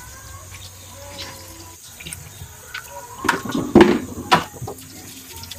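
Tap water running over buriti fruits in a stainless steel sink as they are scrubbed with a sponge. About three seconds in, a short run of knocks and clatters as the wet fruits are handled against each other and the sink.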